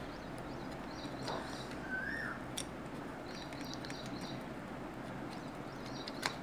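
Birds chirping in the background: a few short chirps and one arched whistled call, over a steady low background hiss, with a couple of light clicks.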